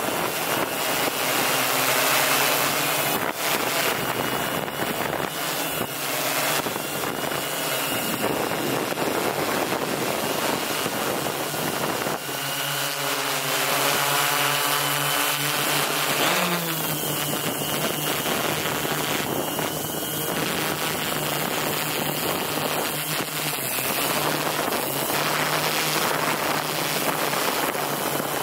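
M690L drone's motors and propellers running steadily in flight, with a high whine and wind rushing over the microphone; the whine shifts in pitch about two thirds of the way through as the motors change speed.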